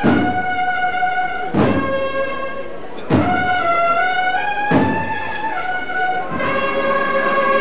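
A Holy Week processional band playing a slow march: brass holds a melody of long notes that step up and down, over a heavy bass-drum beat about every one and a half seconds.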